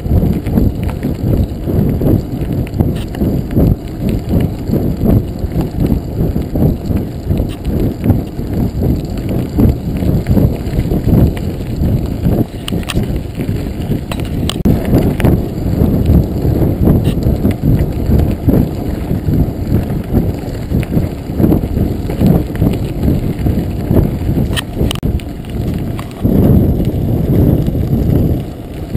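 Full-suspension mountain bike rolling over a gravel road: a dense low rumble of the tyres on the gravel with constant rapid knocking and rattling from the bike, and a few sharp ticks.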